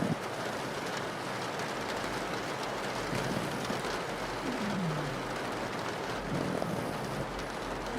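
Steady rain on a window pane, with a pug snoring under it: a few low snores that slide down in pitch, clearest about halfway through.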